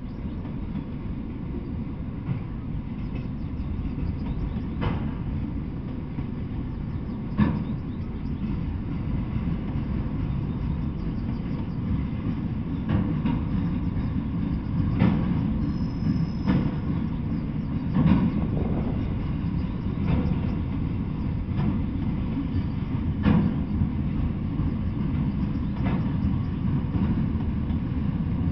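Freight train of autorack cars rolling past at steady speed: a continuous low rumble with irregular sharp clacks from the wheels over the track.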